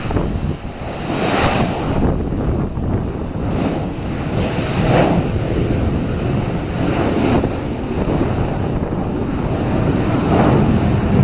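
A Boeing 727-200 freighter's three Pratt & Whitney JT8D turbofans at takeoff power as it lifts off and climbs out: a loud, rough jet roar with a deep rumble, swelling and easing every few seconds.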